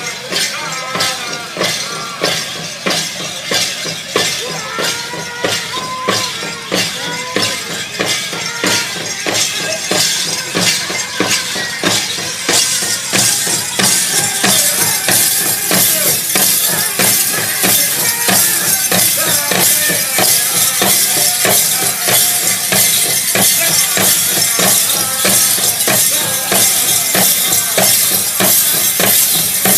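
Powwow drum group singing over a steady beat on a big drum, for a men's round bustle (prairie chicken) dance song. A bright jingling layer grows louder about halfway through.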